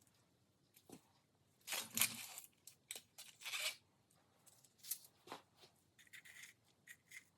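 Thin sheet material, paper or foil, being handled: two short tearing or crinkling strokes about two seconds in and a second and a half later, then scattered small rustles and clicks.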